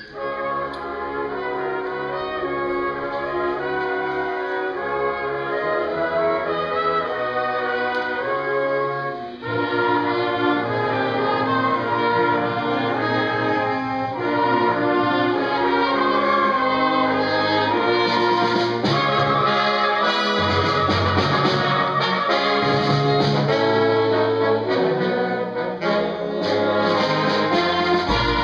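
Concert wind band playing: flutes, clarinets and brass in full sustained chords, growing louder about ten seconds in and fuller again about halfway through.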